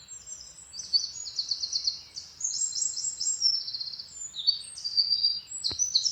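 Small birds chirping and singing: a run of short, high-pitched, rapid trills one after another, each phrase at a slightly different pitch.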